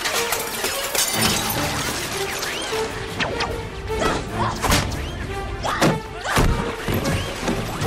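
Film fight sound effects: a quick series of hits and thuds, with a crash among them, over background music.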